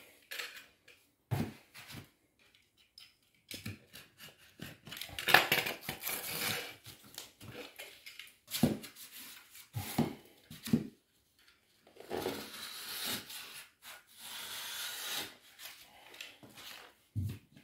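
Wallpaper being handled and trimmed along a skirting board with a utility knife guided by a plastic spatula: a series of short paper rustles and scrapes with a few light clicks, the longest and loudest about five seconds in.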